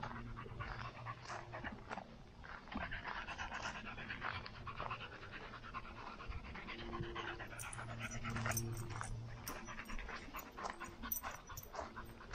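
A dog panting rapidly and hard from exertion on a hot run, over frequent footfalls and a low steady hum.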